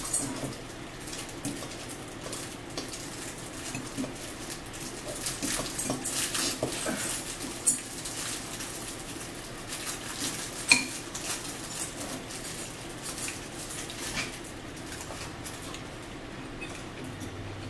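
Metal fork clinking and scraping against a bowl while food is eaten, a run of small clicks with two sharper clinks about eight and eleven seconds in.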